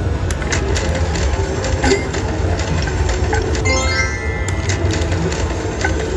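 Cash Machine slot machine spinning its reels: regular sharp clicks about three a second, with a quick falling run of electronic tones about four seconds in, over a steady casino hum.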